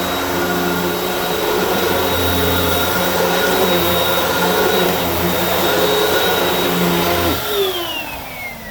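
Hoover WindTunnel upright vacuum running steadily with a high motor whine, then switched off about seven seconds in, the whine falling in pitch as the motor spins down.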